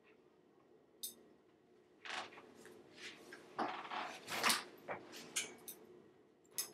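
Soft rustles, brushes and taps of hands against each other and against a T-shirt while signing, clustered in the middle, with a sharp click about a second in and another near the end, over a low room hum.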